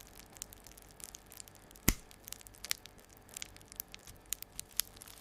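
Soft, scattered clicks and taps from PC parts being handled during a build, with one sharper click about two seconds in.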